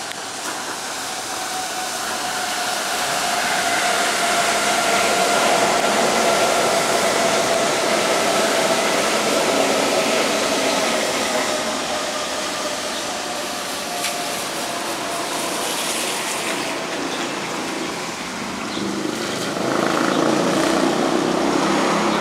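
Osaka Monorail trains passing on the elevated beam: the hiss of their rubber tyres with a motor whine that slowly falls in pitch, loudest about five seconds in. Near the end a second train's lower whine swells up.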